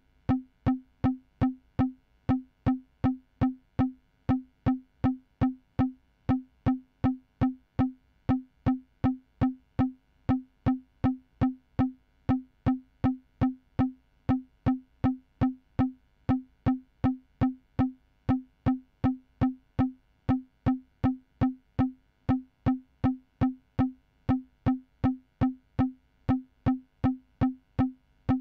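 Synthesized percussion hit looping evenly at about two and a half hits a second: the same short, pitched, tom-like note each time, with a quick downward pitch sweep at the attack, unchanged throughout.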